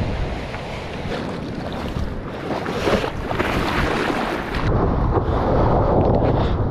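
Ocean surf and water rushing and splashing around a surfboard, with wind buffeting the GoPro's microphone. About four and a half seconds in, the sound turns duller and louder.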